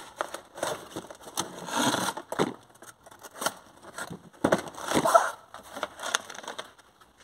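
Cardboard packaging being handled and opened on a wooden workbench: the box sliding out of its printed sleeve and the lid flipped open, a run of irregular scrapes, rubs and light knocks that stops shortly before the end.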